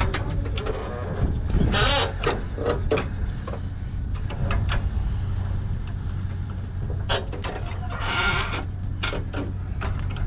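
A truck engine running steadily under the work, with scattered metal clanks and knocks and two longer squeals or creaks, about two seconds in and near eight seconds in, as the car is hauled onto the truck.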